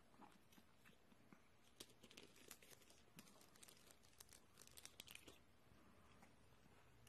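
Near silence with faint, scattered crackling clicks through the middle: small Pomeranian puppies crunching hand-fed treats.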